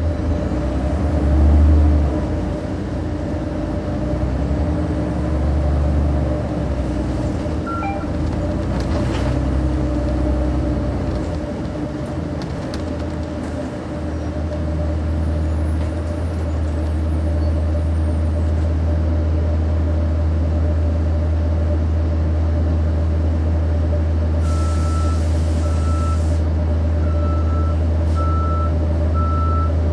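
Nova Bus RTS transit bus with a Cummins ISC diesel, heard from the back seats: a low engine drone rises and falls through the first half, then settles to a steady drone. Near the end there is a short hiss of air, then a run of evenly spaced beeps.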